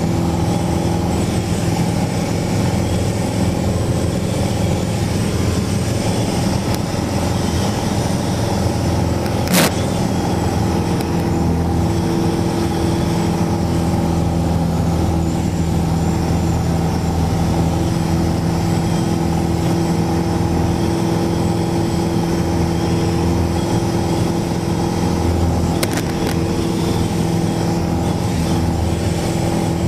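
Steady drone of a Mooney single-engine plane's piston engine and propeller, heard inside the cabin in cruise. A single sharp click comes about ten seconds in.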